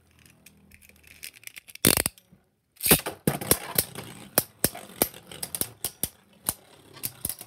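Beyblade spinning tops in a plastic stadium: a loud burst about three seconds in, then a rapid run of sharp clacks and knocks as the tops strike each other and the stadium walls.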